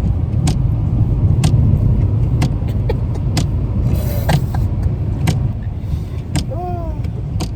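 Steady road and engine rumble inside the cabin of a moving car, with a sharp click roughly once a second.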